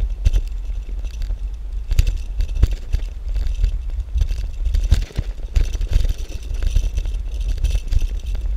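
Wind buffeting the microphone of a moving bicycle, with the low rumble of tyres on pavement and irregular rattling knocks from the bike going over bumps and cracks.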